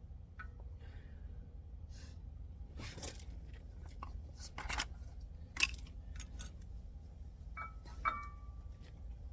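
Metal tools and brake parts being handled during a brake job: a few short scrapes and knocks, then ringing metallic clinks about eight seconds in, over a steady low rumble.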